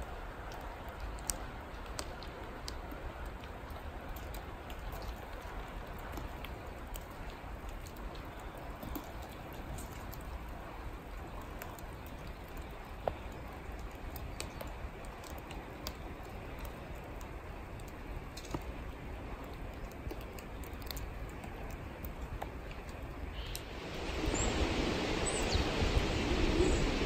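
Thawing, half-frozen woodland stream under slush and ice: a low, steady trickle with scattered small drip-like ticks. About 24 seconds in it gives way to the louder, steady rush of a wide, open river.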